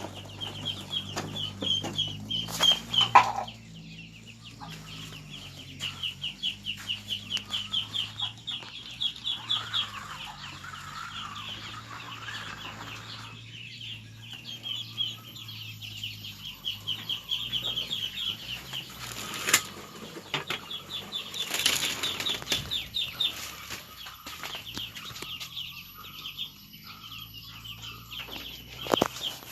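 Chickens in a poultry house, with long runs of rapid high-pitched calls and occasional loud wing flaps or knocks, about three seconds in and again around twenty seconds in. A low steady hum sits underneath.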